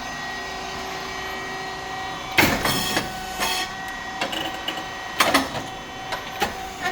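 SYP3080 rice cake popping machine running, its motor and hydraulic pump giving a steady hum. About two and a half seconds in comes a loud sudden pop with a short hiss as the hot mould opens and the rice cakes puff, followed by lighter clicks and knocks from the mechanism.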